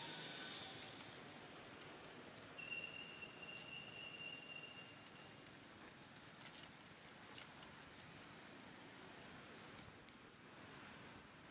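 Quiet outdoor ambience: a faint steady hiss with a thin, steady high-pitched whine, a brief higher tone a few seconds in, and a few soft clicks near the middle.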